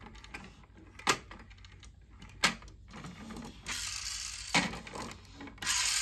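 Handling noise from a toy die-cast dump truck: a few sharp plastic-and-metal clicks as its tipper bed is tilted, then a rustling hiss that grows louder near the end.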